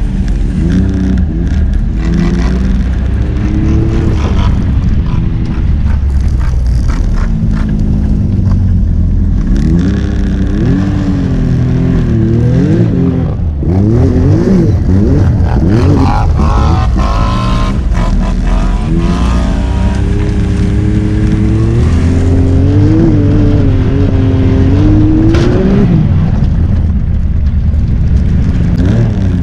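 Off-road vehicle engine running under load, its pitch rising and falling with the throttle, with a run of quick revs and drops near the middle and a long steady climb in pitch that falls away near the end.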